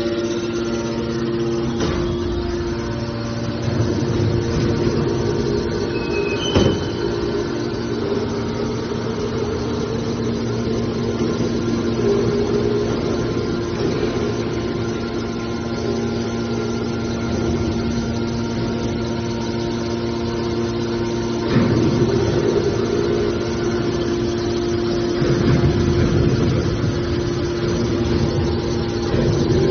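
Small scrap metal baler's hydraulic power unit running with a steady hum, with one sharp knock a little over six seconds in and louder, rougher stretches at about 22 and 26 seconds.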